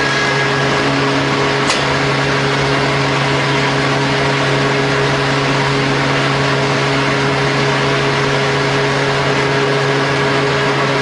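CNC wood mortising machine running steadily with a constant hum, its motor spinning without cutting while the workpiece is changed, with a single sharp click about two seconds in.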